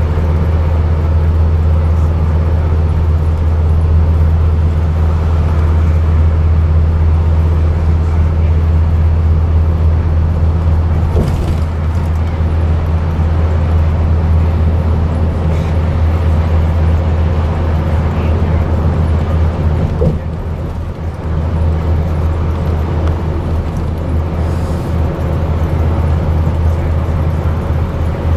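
Scania N230UD double-decker bus's rear-mounted five-cylinder diesel engine running steadily at cruising speed, heard inside the lower deck as a strong low drone over road noise. The level dips briefly about twenty seconds in.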